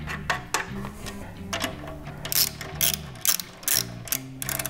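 Hand ratchet with a 13 mm socket clicking in quick runs of a few strokes, about two to three clicks a second, as the motorcycle's front brake caliper bolts are run back in.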